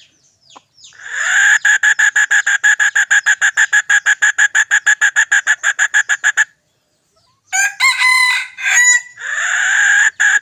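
A cicada's loud, rapidly pulsing buzz, about eight pulses a second. It breaks off for a moment while a rooster crows briefly, then starts again.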